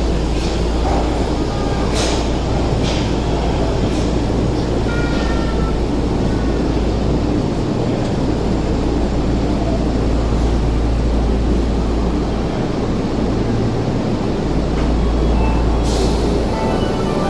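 Tokyo Metro Marunouchi Line subway train running into the station platform and slowing to a stop: a steady low rumble with a few clicks of wheels over rail joints.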